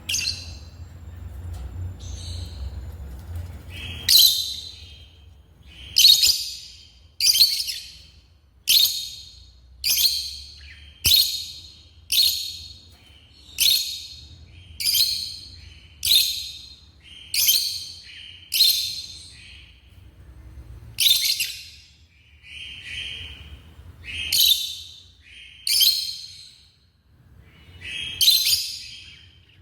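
Lovebirds calling: a long run of short, high-pitched chirps repeated roughly once a second, starting about four seconds in.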